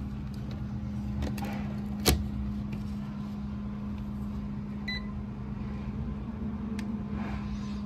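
Steady electrical hum of walk-in freezer refrigeration equipment powered up for a test, with one sharp click about two seconds in and a short, high electronic beep near the middle.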